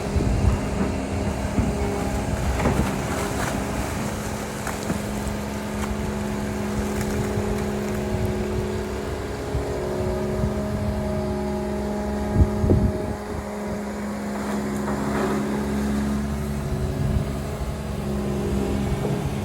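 Long-reach excavator's diesel engine running steadily under digging work, with a few knocks and clanks from the machine, the loudest about twelve seconds in.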